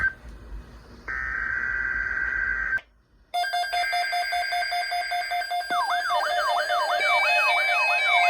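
Weather radio SAME alert header: buzzing digital data bursts, two about a second apart, then a third over a beeping electronic alarm. About halfway through, the alarm turns into a fast up-and-down siren-like warble, signalling an incoming watch or warning.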